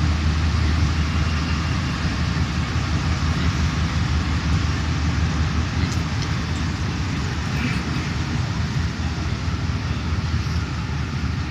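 Interior running noise of a Santiago Metro NS-93 rubber-tyred train between stations: a steady low rumble with hiss, easing slightly near the end as it approaches the next station.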